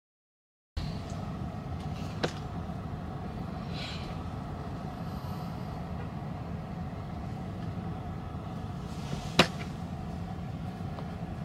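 Steady low hum and rumble of a parked car's cabin. It comes in after about a second of silence, with a small click about two seconds in and a sharper click near the end.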